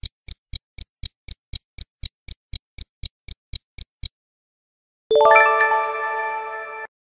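Stopwatch ticking sound effect, about four ticks a second for four seconds, stopping abruptly; after a second's pause a bright ringing chime sound effect marks the correct answer being revealed.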